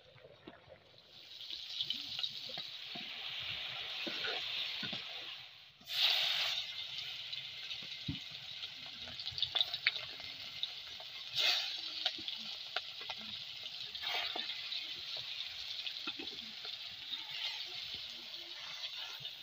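Hot oil sizzling steadily in an iron wok as food fries, with chopped vegetables stirred at first and then pieces of fish frying. The sizzle swells briefly and sharply a few times, about six, eleven and fourteen seconds in.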